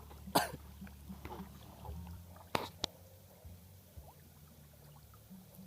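A small boat engine running steadily at a low pitch, its note shifting slightly about two seconds in, with three sharp knocks and faint voices.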